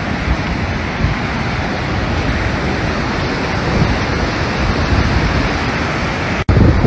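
Fast-flowing floodwater rushing through a street, a steady loud rushing noise. It cuts out for an instant near the end and returns with more low rumble.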